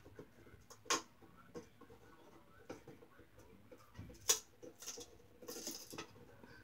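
Faint, scattered clicks and taps as a pet parrot moves about around a wooden box, with a sharper tap about a second in, another about four seconds in, and a brief scratchy rustle near the end.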